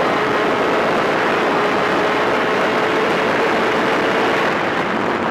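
Superkart's 250cc twin-cylinder two-stroke VM engine running at high revs along the straight, heard from an onboard camera. The note holds steady, then eases off near the end.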